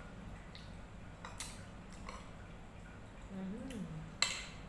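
A few light clicks of a fork and spoon against plates, about a second and a half in and near the end, with a short hummed voice sound just before the end.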